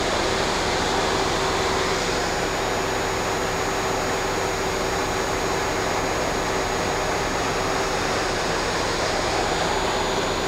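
Mazak Quick Turn Nexus 300-II CNC lathe spindle spinning its 12-inch chuck at 2,000 RPM with no cutting: a steady rushing whir with a steady hum underneath.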